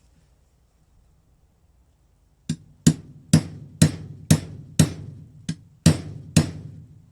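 Hammer tapping a new water pump seal into a motorcycle engine, with the old seal used as a drift: nine sharp blows at about two a second, starting a couple of seconds in.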